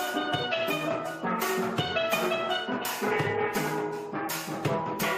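Background music: a steelpan melody over drums with a steady beat.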